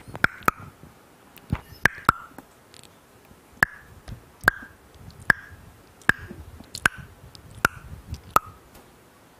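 A series of sharp clicks or taps picked up close to a headset microphone: two quick pairs, then single clicks about one every 0.8 seconds, each with a short ring.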